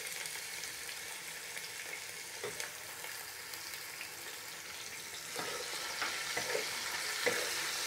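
Freshly added sliced onions sizzling in hot oil with whole spices, at the start of being fried brown. A wooden spatula scrapes and stirs them now and then, more often in the last few seconds.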